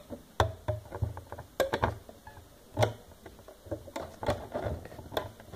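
Light, irregular clicks and taps of a clear plastic Rainbow Loom and its hook being handled as rubber bands are worked over the pegs.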